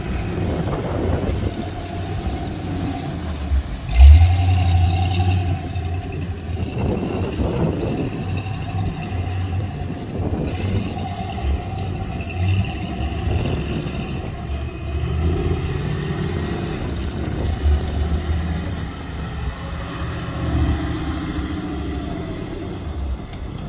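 Off-road buggy engines revving under load as the rigs climb sand and rock, the throttle rising and falling, with a loud surge of throttle about four seconds in.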